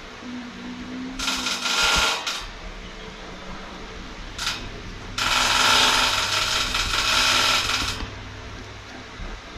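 A small electric motor whirring with a hiss and a steady whine in three bursts: about a second long, then a brief one, then about three seconds long, stopping abruptly; a steady low hum runs under it.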